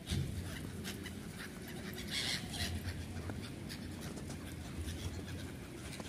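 Flock of swans, gulls and pigeons at the water's edge: scattered short calls and rustles, with one louder call about two seconds in, over a steady low rumble.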